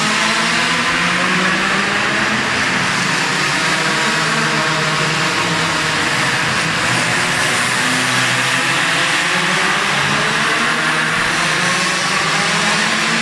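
Several minimoto pocket bikes' small two-stroke engines buzzing around a track together, their overlapping pitches rising and falling as they accelerate and ease off.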